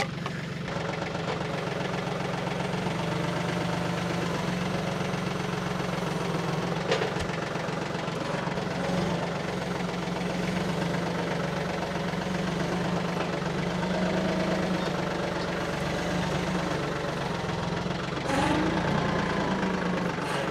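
Small farm tractor's engine running steadily at low speed, with a brief knock about seven seconds in.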